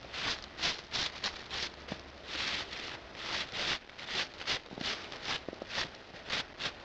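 Footsteps crunching through snow, a steady run of quick crunches about three a second.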